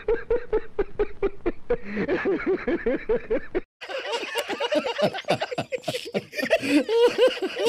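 A man laughing in quick, repeated bursts; after a brief break about halfway, several men laughing together.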